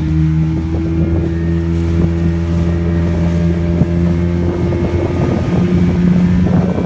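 Engine of a small fibreglass motorboat running steadily under way, a constant low hum, with wind buffeting the microphone and water splashing against the hull.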